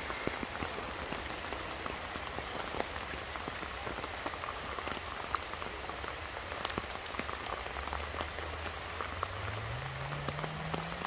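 Heavy rain falling steadily through woodland, a constant hiss with many individual drops ticking close by.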